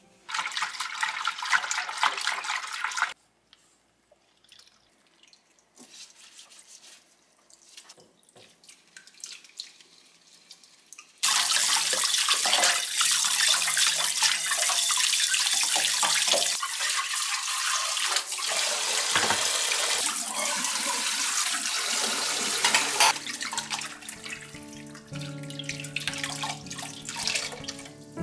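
Kitchen tap water running into a stainless steel sink during dishwashing. A short burst of water comes in the first three seconds. Then there are quiet soft clicks of a bowl being handled. From about eleven seconds the tap runs strongly for about twelve seconds, then stops.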